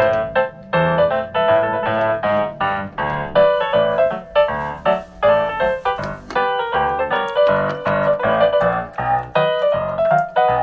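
Background music: a bouncy, playful piano tune with short staccato notes over a bass line.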